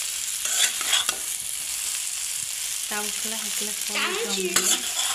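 Chowmein noodles and egg sizzling in hot oil in a metal pan as they are stirred and tossed, with a few clatters of the utensil against the pan. A pitched voice-like sound joins over the last two seconds.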